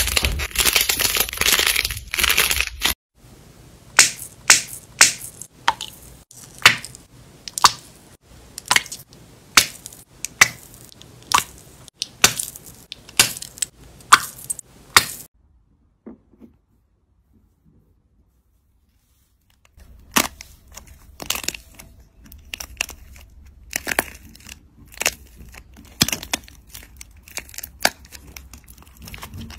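Hands squeezing and working slime. Dense crackling for the first few seconds, then a run of sharp pops about once a second, then a few seconds of near silence. After that comes irregular crunching and crackling as a pink slime with a dried, cracked crust is broken apart.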